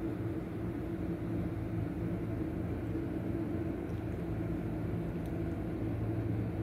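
Steady low hum of an air-conditioner outdoor unit running, several low pitches held even throughout.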